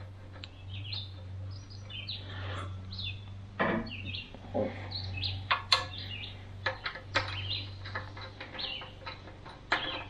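Small birds chirping repeatedly, mixed with sharp clicks and light metal taps from a screwdriver working a screw into a throttle cable clamp, its nut held in locking pliers. A steady low hum runs underneath.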